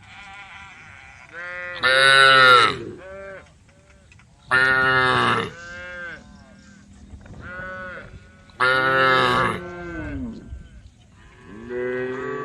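Several cows mooing in turn: three loud moos, each under a second long, with fainter moos from other cows between them.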